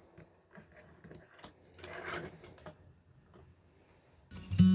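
Faint small clicks and rattles of a toy truck being handled and rolled across a tabletop, with a brief scraping rustle about two seconds in. Acoustic guitar music starts loudly near the end.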